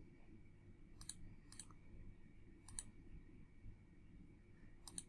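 Faint computer mouse clicks, four in all, spaced irregularly against near silence.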